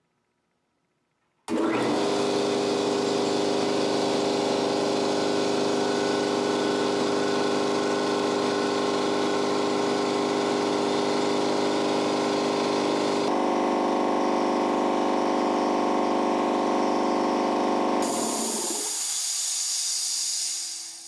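Ingersoll Rand SS4 5 hp, 60-gallon electric air compressor starting suddenly about a second and a half in and running steadily and loudly, its note shifting about two-thirds of the way through. Near the end the motor winds down and a sharp hiss of air takes over, then fades.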